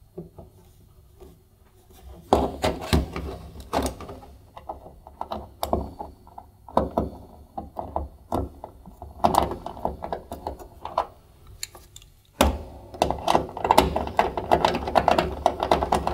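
A screwdriver driving screws to fix a new tumble dryer heater element to the dryer's sheet-steel back panel. It comes as three spells of rapid clicking and metal scraping with short pauses between them.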